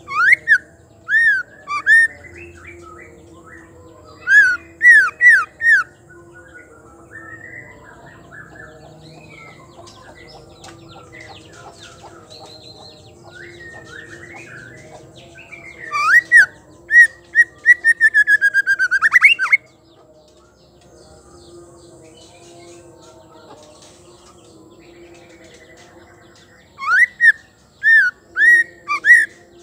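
Female white-rumped shama calling: bursts of four or five loud, sharp notes, spaced by several seconds, and one fast rattling run of notes about two-thirds of the way through, with fainter chirping between the bursts.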